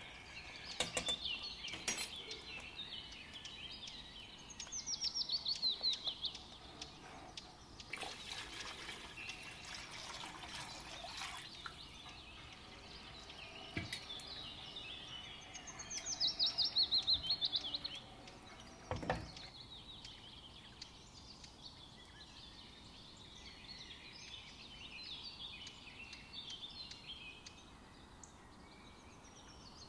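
Small birds chirping, with a loud, rapid, falling trill repeated about every twelve seconds. A few sharp knocks and a few seconds of hiss midway.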